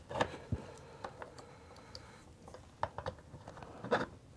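Scattered light clicks and taps as test-lead plugs are handled and fitted into the input jacks of an OWON XDM1241 bench multimeter and its front-panel buttons are pressed. The louder clicks come near the start, about three seconds in and near the end.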